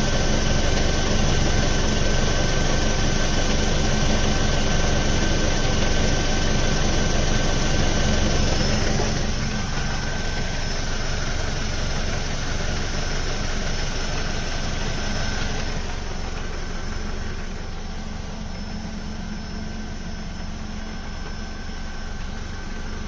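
Ford Focus mk2's 2.0 Duratec HE inline-four idling with a rattle, which goes away when the clutch pedal is pressed and which a new clutch, flywheel and release bearing have not cured. The sound steps down in loudness about nine seconds in and again about sixteen seconds in.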